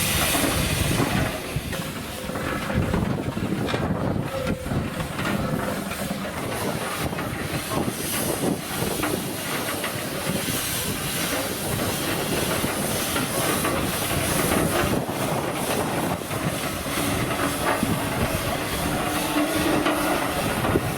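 Steam traction engine running, with a steady hiss of steam and irregular mechanical clatter.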